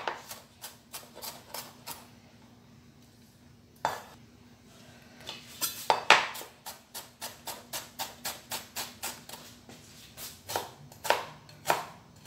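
Kitchen knife chopping carrot finely on a cutting board: runs of quick sharp knocks, about five a second, with a short pause in the middle and a few louder strikes near the end.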